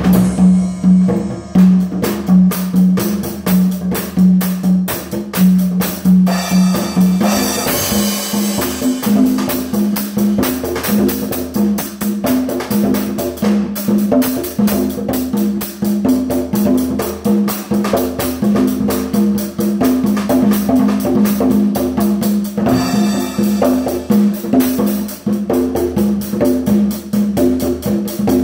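Drum kit played in a continuous steady groove, strikes several times a second with cymbals and toms, over a held low pitched tone that changes note now and then.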